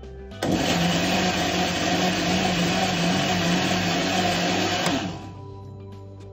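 Countertop electric blender running, blending mango and banana pieces into a smoothie. It starts abruptly about half a second in, runs with a steady motor hum, and is switched off about five seconds in, winding down.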